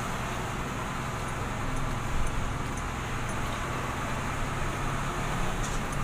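Mitsubishi Fuso truck's diesel engine running steadily at low speed, heard from the cab as a low drone.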